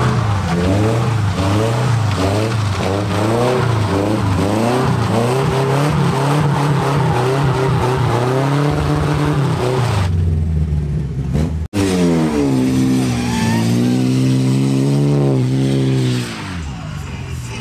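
Car engine revving hard during a burnout, with tyre squeal: the engine pitch surges up and down over and over, then holds high. After an abrupt cut, a second burnout revs high, dips, climbs again and falls away near the end.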